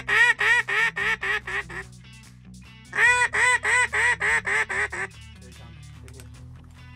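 Hand-blown Nor'easter Game Calls duck call giving two runs of about nine quacks each, about a second apart, each run fading toward its end: calling to incoming ducks to bring them in.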